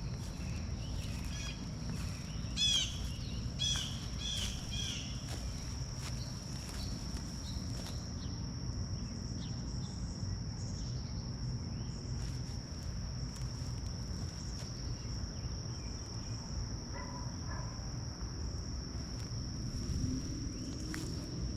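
Outdoor ambience: insects singing one steady high drone, with a few quick bird chirps in the first five seconds and again briefly near the end, over a low steady rumble.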